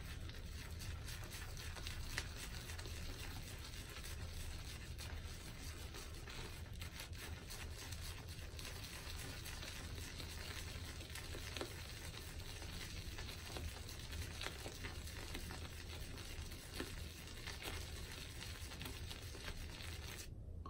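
Synthetic shaving brush swirled over a puck of Barrister's Reserve shaving soap in its tub, loading the damp brush with a pasty layer of soap: a faint, steady brushing noise with occasional small ticks.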